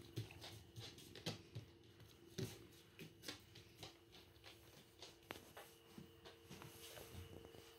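Faint irregular rustles and clicks from a hand scratching and stroking a cat's fur and from the phone being handled, over a faint steady hum.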